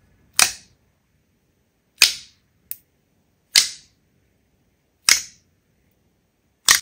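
Five sharp, loud pops about a second and a half apart, with one smaller click between the second and third, from air pockets bursting as slime is pressed and poked.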